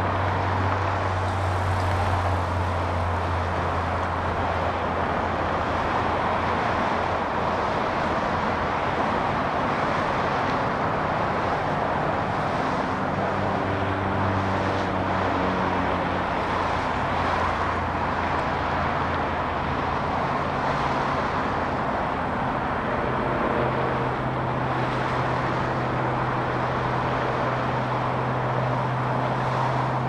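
Steady road traffic noise from cars on a busy multi-lane road, with low engine hum that shifts in pitch as vehicles move.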